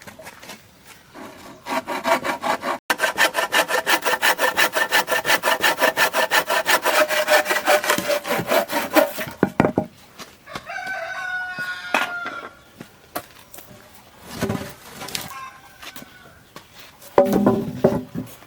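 Handsaw cutting through wood in quick, even back-and-forth strokes that stop about halfway through, followed by a few separate knocks of wood.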